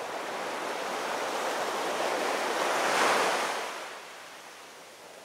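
A single rush of surf-like noise that swells to a peak about three seconds in, then fades away.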